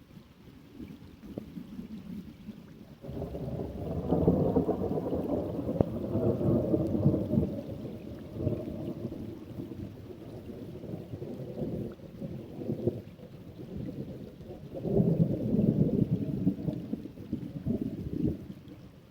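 Rainstorm: steady rain with a long rumbling swell starting about three seconds in and a second shorter swell near the end.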